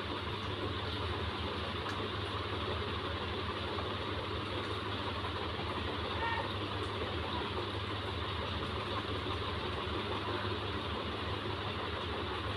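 Steady low hum with an even hiss over it, running without change; no distinct mixing or kneading sounds stand out.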